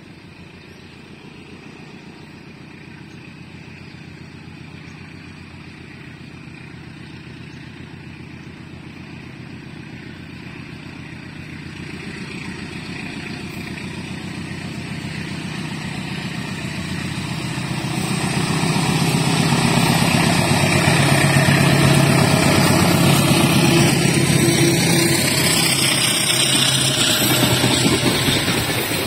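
Indonesian diesel-electric locomotive hauling a train, approaching and passing close by. Its engine hum and the rolling noise grow steadily louder for about twenty seconds and peak as the locomotive goes past. The coaches then rumble and clatter by on the rails, with some high-pitched wheel squeal near the end.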